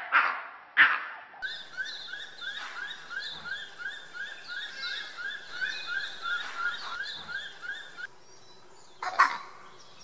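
Wild animal calls: two short, loud calls at the start, then a steady run of short rising chirps, about three a second, for several seconds, and another short, loud call near the end.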